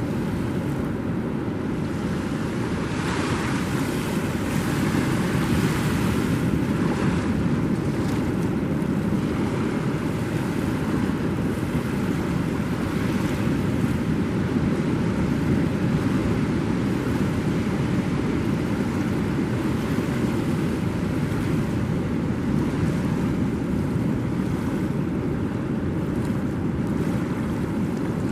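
Surf washing on the beach with wind buffeting the microphone: a steady rushing noise with its weight low down, swelling a little in the first half.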